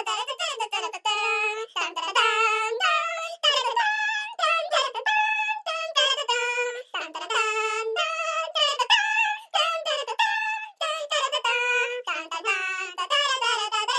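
A very high-pitched singing voice carrying a melody of short notes that slide from pitch to pitch, with no bass beneath it.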